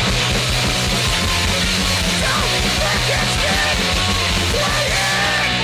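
Punk rock band playing hard: distorted guitars and bass over fast drums, with a yelled vocal.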